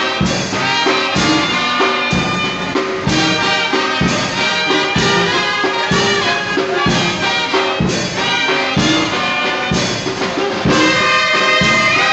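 Mexican wind band (banda de viento) playing: tuba, saxophones and trumpets over snare and bass drum, with a steady beat.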